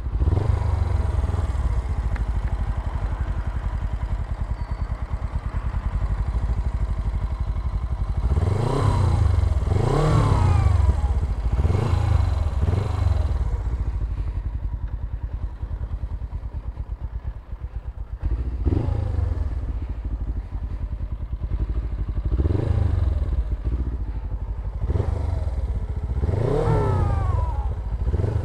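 Suzuki GS500E parallel-twin engine running through a Leo Vince exhaust while riding, its revs swelling up and dropping back in short surges: several in quick succession about a third of the way in, then a few more spaced out toward the end.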